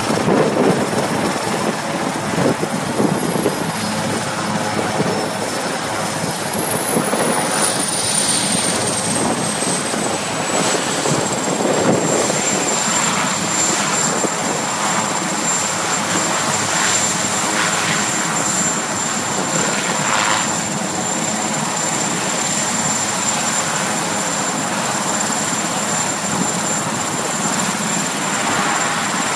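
Marine One, a Sikorsky VH-3D Sea King helicopter, running on the ground with its rotors turning: a steady rotor and engine rumble with a high turbine whine. The whine falls in pitch about seven to twelve seconds in, then holds steady.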